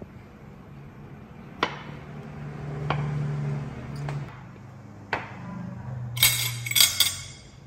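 Kitchen knife cutting papaya on a wooden cutting board: a few sharp knocks about a second apart, then a brighter, louder metallic clatter near the end as the knife is set down on the board.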